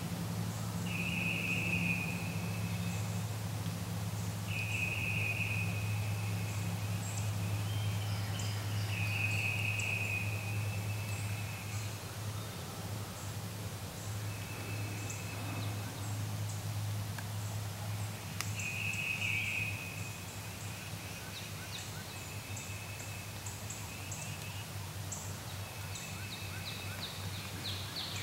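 Wild turkey gobbler on the roost gobbling at intervals, each call one to two seconds long. Scattered high songbird chirps and a steady low hum run underneath.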